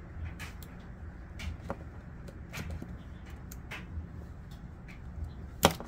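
Fingernails picking at the liner of 3M double-sided tape on a plastic hood scoop: scattered small clicks and scratches, with one sharp click near the end, over a low hum.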